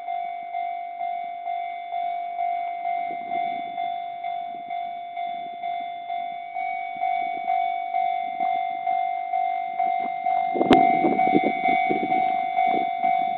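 Level-crossing warning bell ringing over and over, about two strokes a second, each stroke dying away. About ten and a half seconds in, a sharp crack is followed by the clatter of a train's wheels passing over the crossing.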